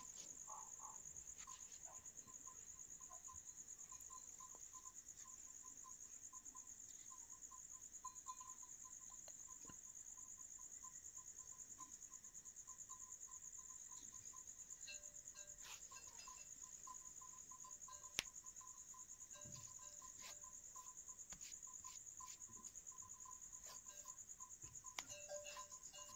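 Near silence with a faint, steady, high-pitched cricket trill, and a few small taps and clicks.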